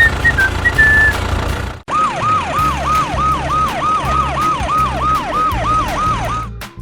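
Emergency vehicle siren in a fast yelp, its pitch rising and falling about three times a second. It starts about two seconds in, after a short break, and stops just before the end. A low pulsing runs underneath.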